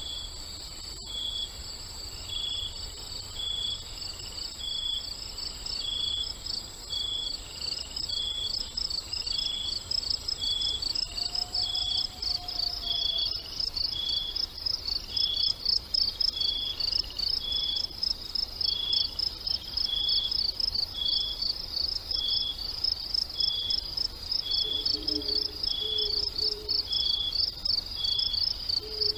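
Night-time insect ambience: crickets chirping in a rapid, steady pulse, with a second chirp repeating about once a second and a high steady trill that stops partway through. A few faint low calls come near the end.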